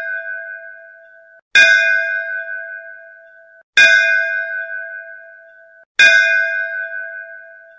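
A bell struck three times, about two seconds apart, each stroke ringing with a clear pitched tone and fading, then cutting off abruptly just before the next stroke.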